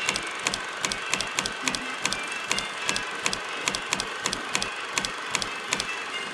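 Rhythmic tapping: sharp, short taps, about three a second in an uneven pattern, over a faint steady high tone.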